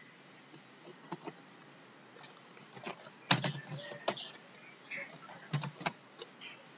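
Computer keyboard being typed on: irregular keystroke clicks, with the loudest keystroke a little over three seconds in.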